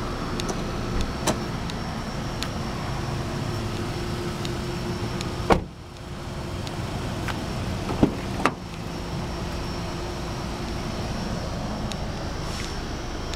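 A 2008 Honda Accord's front door shuts with a single heavy thump about five and a half seconds in. Two sharp knocks follow close together about eight seconds in, as the rear door is opened, over a steady background hum.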